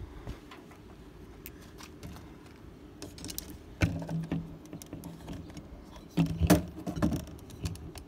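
An RV entry-door lock being pried apart with a screwdriver, its metal and plastic parts clinking and knocking. A few sharp knocks come about four seconds in and again around six to seven seconds.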